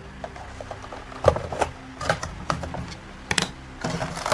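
Light clicks and plastic crinkling as a boxed Funko Pop figure is handled and worked out of its clear plastic box protector, with a few sharper crackles about one and three seconds in.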